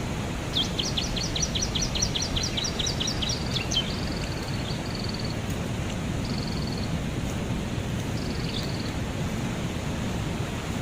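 A songbird singing: a fast run of sharp high notes for about three seconds, then a few short trills spaced a second or two apart, over a steady rushing background noise.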